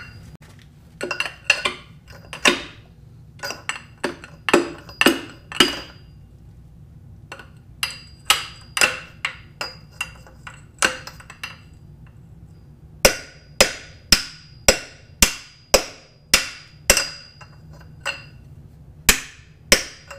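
Hammer blows and a long steel bar driven down a cylinder of a Chrysler 413 big-block, knocking out a broken piston: runs of sharp metallic strikes that ring briefly, with a couple of short pauses between runs.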